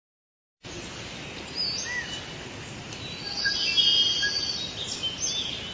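Birds chirping, several short rising and falling calls, over a steady outdoor background hiss that starts about half a second in.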